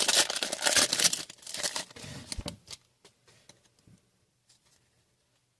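A foil trading-card pack wrapper crinkling and tearing as cards are handled, busy for the first two and a half seconds, then a few faint card ticks before it goes quiet.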